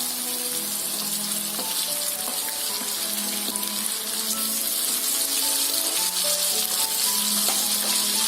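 Small onions and dried red chillies sizzling in hot groundnut oil in a pan, a steady frying hiss.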